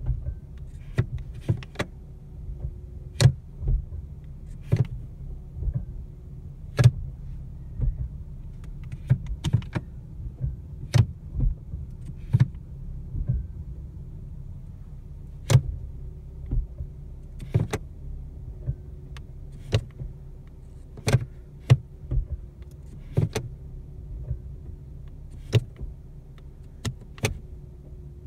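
Idling Ford Mustang V6 with repeated sharp clunks or pings as the automatic transmission is shifted between park, reverse and drive, about one every second or two. The noise persists after the dealer replaced a defective driveshaft flange, and the owner suspects the transmission or rear differential.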